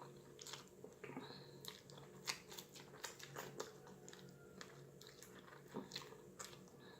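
A person chewing food close to the microphone: an irregular run of faint, wet mouth clicks and smacks, about two a second.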